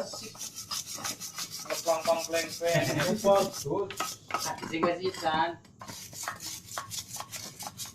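Quick repeated scrubbing strokes rubbing over oily engine parts during cleaning, a fast, steady back-and-forth rasp.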